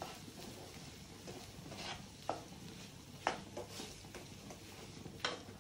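A wooden spatula stirring and turning boiled chana dal in a metal pan. There are a few short scrapes and taps of the spatula against the pan.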